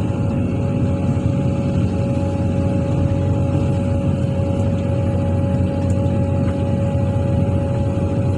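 Excavator's diesel engine running steadily, a low rumble with a constant whine over it.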